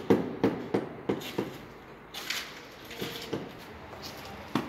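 Repeated knocks on a stone slab, about three a second for the first second and a half, then a few scattered knocks and scrapes: tapping the slab down to bed it in the mortar.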